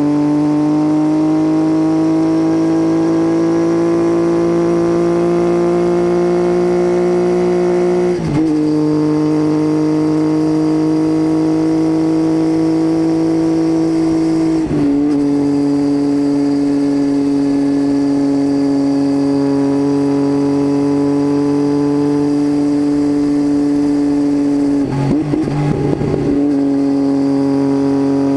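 Triumph Tiger 800's three-cylinder engine through an unbaffled titanium Leo Vince exhaust, a steady drone under way. The pitch climbs slowly, dips briefly at gear changes about eight and fifteen seconds in, and goes uneven for a moment near the end.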